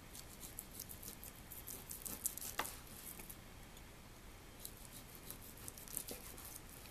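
Chef's knife slicing through raw beef tenderloin on a wooden cutting board: faint, irregular clicks and taps in two runs, with a short pause about halfway.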